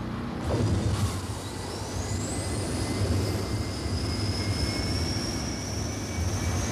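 Anime sci-fi sound effect of a spacecraft's rocket engine: a steady low rumble that comes in about half a second in with a falling swoosh, and above it a thin high whine that rises and then holds.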